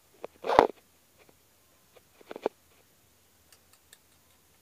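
An opossum rummaging among plastic bags and a tin can, making short crinkles and rustles of plastic. They are loudest about half a second in, with another cluster about two seconds later, then a few faint ticks.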